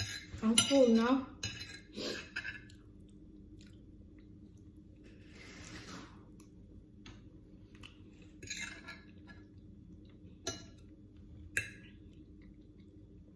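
Metal knife and fork clinking and scraping against a ceramic plate during a meal, with a few sharp clinks spread through. A short vocal sound, like a brief hum, comes in the first second.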